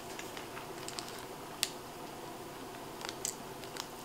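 Mostly quiet, with a few faint clicks and crunches of chewing a hard, crispy wafer-filled chocolate bar.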